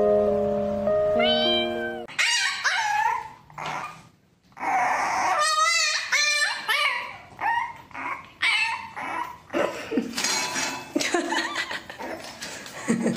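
A French bulldog puppy crying in a long string of short, high, wavering whines and yelps, with a brief break a little before halfway.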